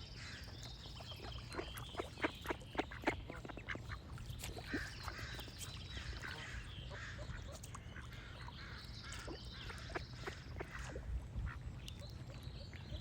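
A duck quacking in quick runs of short calls, with songbirds singing; a high bird trill comes back about every four to five seconds. A steady low rumble runs underneath.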